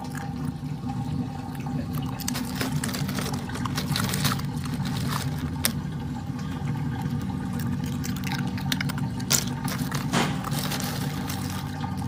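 Crushed ice crunching and clicking as an otter pup noses and paws through it, many small sharp clicks over a steady low hum.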